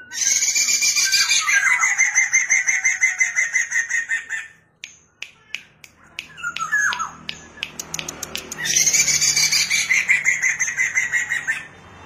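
Poksay mandarin (masked laughingthrush) singing in two loud bouts of fast repeated notes, one at the start and one about two-thirds through. In the pause between, there is a run of sharp clicks and a few short calls.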